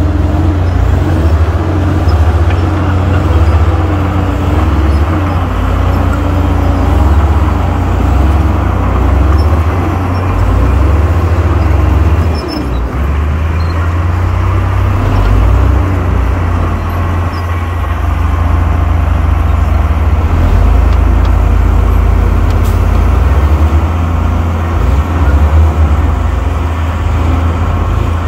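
Heavy diesel engine of earthmoving machinery running under load, its pitch wavering up and down, with a brief drop in loudness about halfway through.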